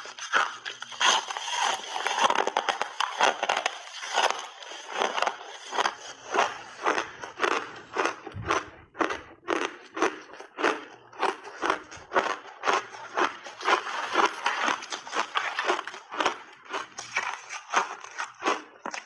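Chewing on a bite of refrozen crushed ice, close to the microphone. The crunching is dense for the first few seconds after the bite, then settles into a steady rhythm of about two crunches a second.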